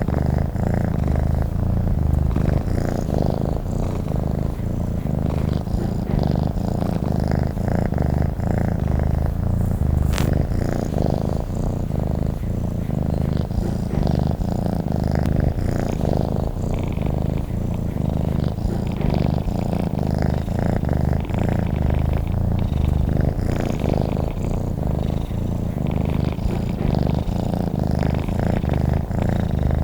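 Domestic cat purring steadily and continuously, a low rapid rumble. There is a single faint click about a third of the way through.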